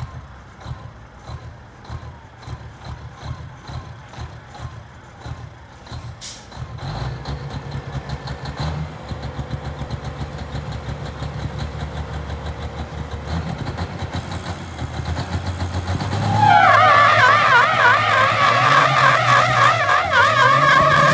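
Semi tractor's diesel engine running hard under load while its rear tires spin in a burnout, pulsing at first and growing louder. About three-quarters of the way through, a loud, wavering tire squeal starts and becomes the loudest sound.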